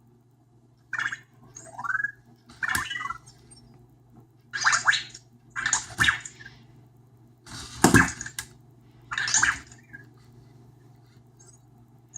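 Anki Vector robot making about six short bursts of electronic chirps and whirring, some with quick rising and falling pitch glides, over a steady low hum.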